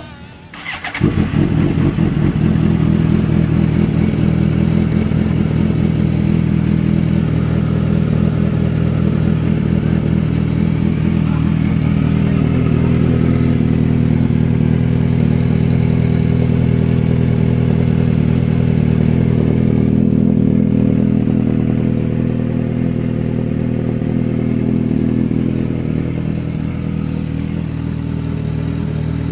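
Inline-four motorcycle engine started on the electric starter, catching about a second in, then idling steadily with no revving.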